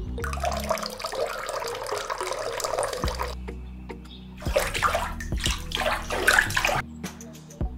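Water poured from a small metal toy bucket into a miniature trough, a splashing trickle for about three seconds. After a short pause comes a second, louder burst of splashing lasting about two seconds.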